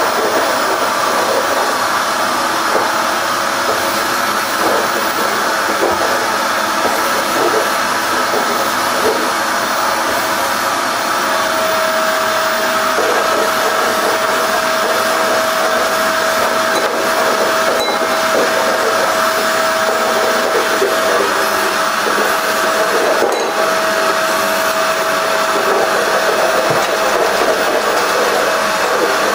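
Canister vacuum cleaner running steadily as its hose nozzle is worked over a wooden floor, sucking up white dust. About a third of the way in, a steady whistle-like tone joins the running noise.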